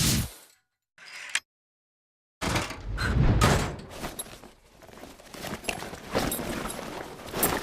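Layered sound effects for a film scene of a spacecraft breaking apart: a short burst that ends in a sharp click, a second of dead silence, then a run of heavy thuds and knocks over a deep rumble.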